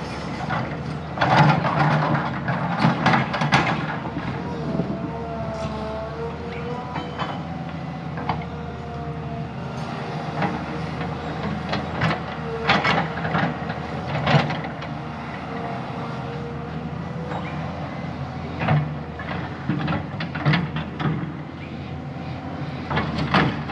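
Diesel engine of heavy earthmoving machinery running steadily, with sharp metallic clanks and knocks in clusters: several in the first few seconds, a few about halfway through, and more near the end.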